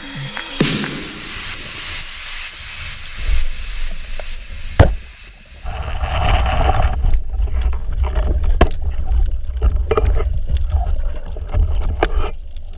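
Underwater sound picked up through an action camera's housing as a diver swims: a hiss of water with scattered clicks, and one sharp knock about five seconds in. From about six seconds a low rumble of water moving against the housing joins it.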